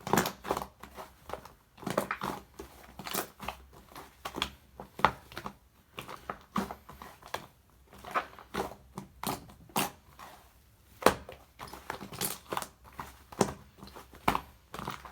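Irregular crunching and crinkling, many short crackles a few times a second, unevenly spaced and varying in strength.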